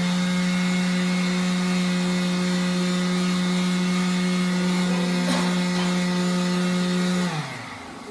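A small electric motor spins up, runs at a steady, even hum for about seven seconds, then winds down and stops near the end.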